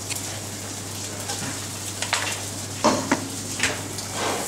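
Whole king prawns searing in hot oil in a non-stick frying pan, a steady sizzle, with a few sharp knocks about two to four seconds in.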